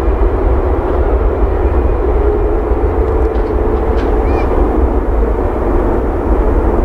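Four-engined Airbus A340-300 jetliner on its take-off run, engines at high power: a loud, steady rumble with a droning tone running through it.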